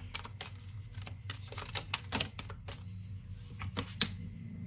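Oracle cards being shuffled by hand: a run of quick, irregular card clicks and snaps, with one sharper snap about four seconds in, over a steady low hum.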